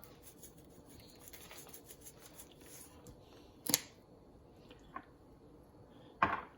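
Lemon pepper being shaken from a shaker bottle, a faint rapid patter of grains, followed by a few sharp clicks and knocks, the loudest about three and a half seconds in and again near the end.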